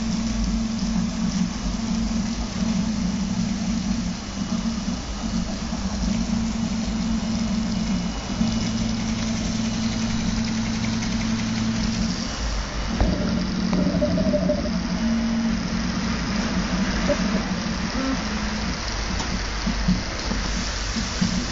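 RepRap Prusa Mendel 3D printer's stepper motors whirring steadily as it prints, the tone changing every few seconds as the moves change, with a click about thirteen seconds in.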